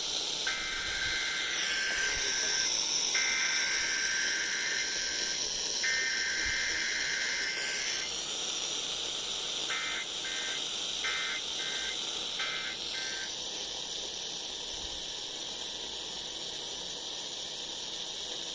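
Emergency Alert System SAME data tones over AM radio: three raspy two-second header bursts, then a quick run of short end-of-message bursts about ten seconds in, over steady radio hiss.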